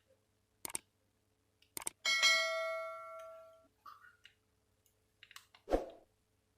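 A single bell-like chime from the Samsung SGH-X460 phone's speaker, several tones struck together and fading over about a second and a half. Two short clicks come before it, and a thump comes near the end.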